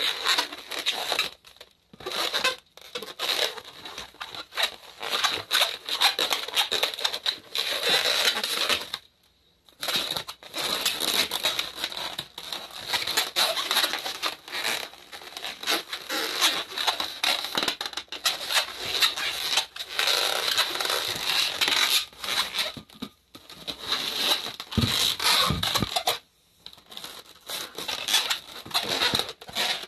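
Long latex modelling balloons squeaking and creaking against each other as they are twisted and wrapped around a balloon figure, in runs broken by a few short pauses.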